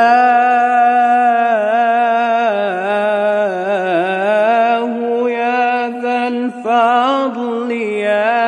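Solo male voice singing an unaccompanied Islamic ibtihal, drawing out a long ornamented melisma on one word with a wavering, turning pitch. There is a brief catch of breath about six and a half seconds in.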